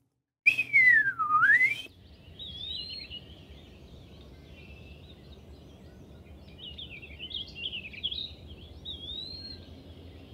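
A loud slurred 'pee-a-wee' whistle, the eastern wood-pewee's song phrase, sounds once about half a second in. It glides down and then back up. Soft songbird chirps and warbles follow until the end.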